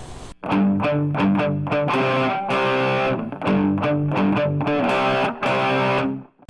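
Short music jingle on distorted electric guitar, a run of punchy chords that starts about half a second in and cuts off suddenly just before the end.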